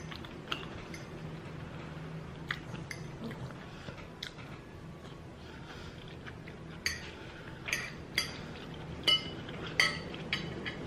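Cutlery clinking and tapping against a dish while eating: scattered sharp clicks, sparse at first and coming in a quick cluster over the last few seconds, each with a short ring.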